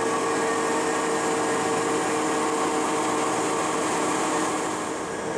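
Steady hum of running machinery, with several fixed whining tones over an even rushing noise, easing slightly near the end.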